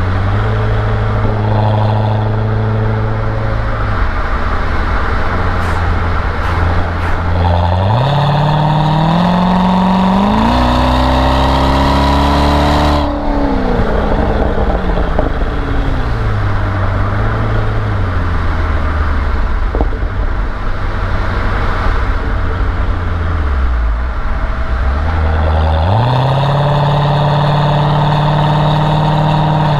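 Chevrolet Corvette C6 V8 with an automatic gearbox driving. The engine runs steadily, then about eight seconds in the revs climb hard for around five seconds under acceleration. It comes off the throttle abruptly and winds down, then the revs step up again near the end.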